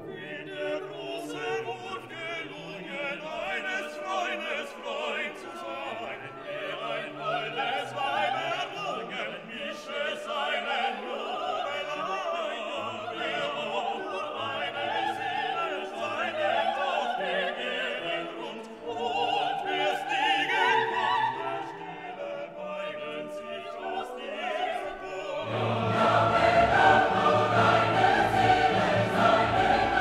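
Background music: classical singing with choir and orchestra, growing louder and fuller, with deep bass coming in, near the end.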